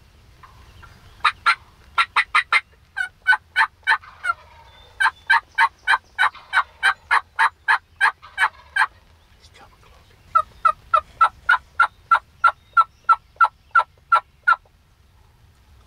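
Turkey yelping: several runs of loud, short, evenly spaced hen-style yelps, about three a second, with short pauses between the runs.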